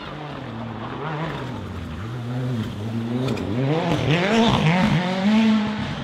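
Rally car engine coming closer and getting louder, its revs rising and dropping sharply several times as the driver works the throttle and gears through a bend.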